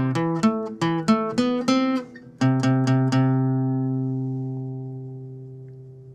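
Short intro tune on a plucked guitar. A quick run of single notes is followed, about two and a half seconds in, by a few chords that ring on and slowly fade away.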